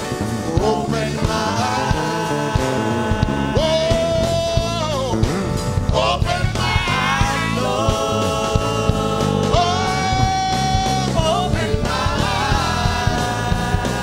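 Praise music with a singing voice holding and bending long notes over a steady beat.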